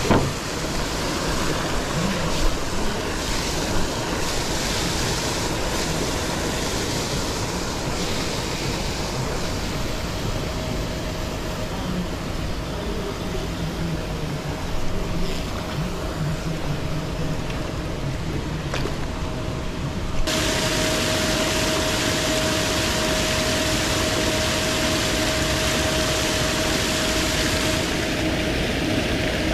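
Paddlewheel aerator churning the pond water: a steady splashing rush with a steady motor hum under it, stepping up in loudness about two-thirds of the way in.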